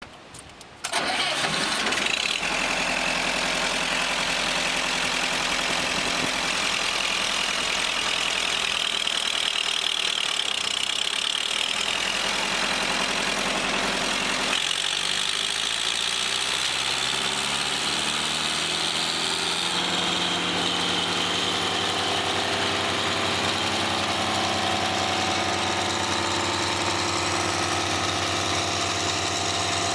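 1998 Vermeer 1250 brush chipper's engine starts abruptly about a second in and runs steadily at low speed. About halfway through it is throttled up, its pitch rising over several seconds, then it runs steadily at the higher speed.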